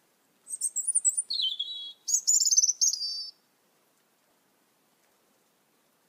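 A songbird singing two short, high-pitched phrases: a warble that steps down in pitch, then a fast trill, each lasting just over a second.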